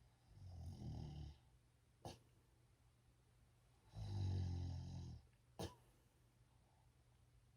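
A person snoring in sleep: two low snores on the in-breath, about three and a half seconds apart, each followed by a short sharp puff of breath.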